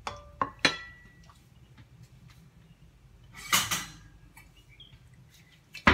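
Stainless steel saucepan clinked three times by a utensil in the first second, the last two knocks ringing briefly, then a short rustling scrape about three and a half seconds in.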